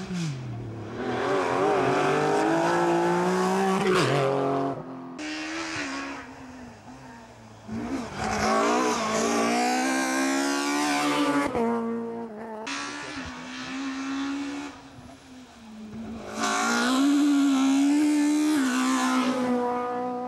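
Rally cars at full throttle on a tarmac stage, passing one after another: the engines rev up and drop in pitch through gear changes. Three loud passes, each cut off abruptly.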